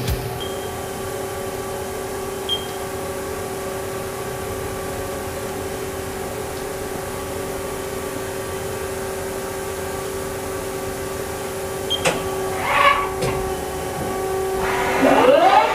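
Haas ST40 CNC turning center powered up, giving a steady machine hum with one held tone. There is a click about twelve seconds in, and near the end the lathe's spindle starts to spin up with a rising whine.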